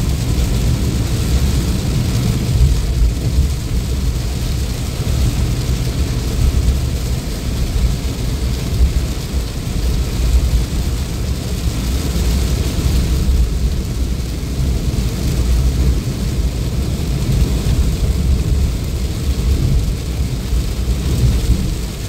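Heavy rain drumming on a car's roof and windshield, heard from inside the car as a loud, steady rushing noise with a deep rumble.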